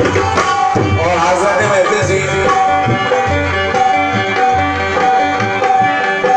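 Live qawwali: a male voice singing over a harmonium's held notes and a steady beat on hand drums.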